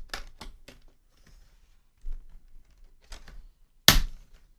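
Plastic screen-bezel clips of an Acer laptop snapping loose as the bezel is pried off with a small flathead screwdriver: a few light clicks in the first second, and one loud sharp crack near the end.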